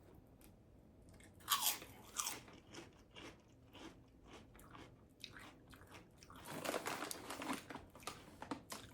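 Close-miked crunchy food being bitten and chewed, with crisp crunches throughout and louder clusters about one and a half seconds in and again near seven seconds.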